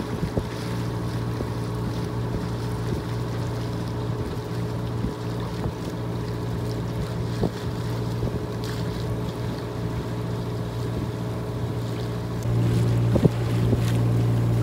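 Boat's engine running at a steady speed, a low even drone, growing louder near the end.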